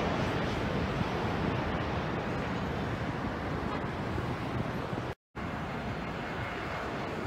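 Steady rumble of distant city traffic with the engine noise of an airliner on approach. The sound cuts out completely for a split second about five seconds in, then the same steady rumble resumes.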